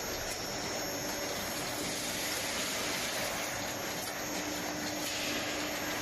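Machinery of a snack frying, de-oiling and seasoning production line running steadily, an even whirring hiss with a faint steady hum.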